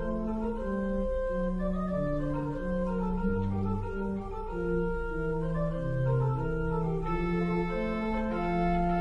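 Church organ playing slow, sustained chords over a moving bass line. About seven seconds in, the sound grows brighter as higher pitches join.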